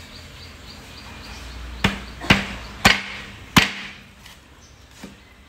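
Cleaver chopping raw chicken on a wooden cutting board: four sharp chops in quick succession a couple of seconds in, then a lighter knock near the end.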